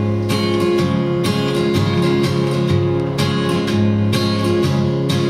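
Solo acoustic guitar strummed in a steady rhythm, an instrumental passage of a country-gospel song with no voice.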